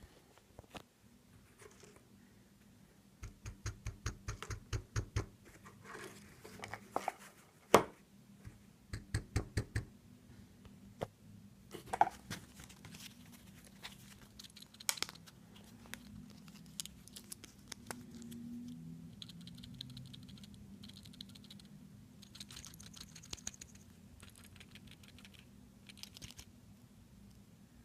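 Seiko SNK809's 7S26 automatic movement rattling as the watch is moved: bursts of rapid light clicks, several a second, with a few sharper knocks and fainter clicking later on. The rattle is the sign of a rotor fault.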